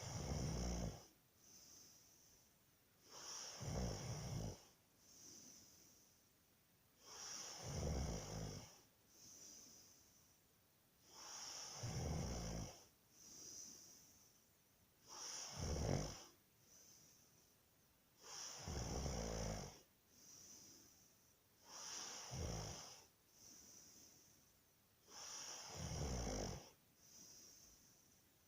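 A man snoring in a steady rhythm, about one loud snore every four seconds, each followed by a softer hiss of breath.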